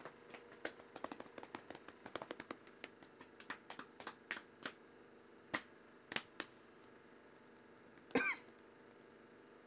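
Computer keyboard typing in quick irregular runs of keystrokes, thinning to a few single clicks. About eight seconds in, a short vocal noise like a cough.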